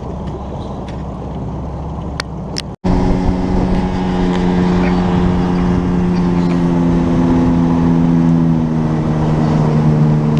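A low rumble, then after an abrupt cut about three seconds in, a boat engine running steadily underway with a strong, even hum.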